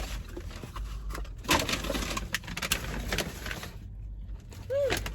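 A string of light clicks and crackles, like paper or packaging being handled, then one short rising-and-falling vocal note near the end.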